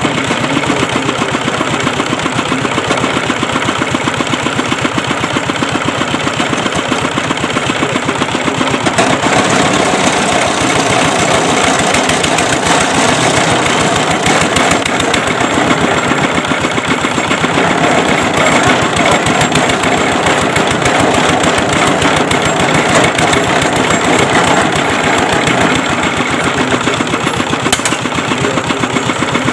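Engine of a water well boring machine running steadily with rapid, even firing pulses; it gets somewhat louder from about nine seconds in.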